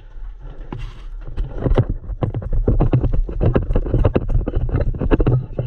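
Quick, irregular footsteps and rattling gear of a player moving forward at pace, several knocks a second over a low rumble.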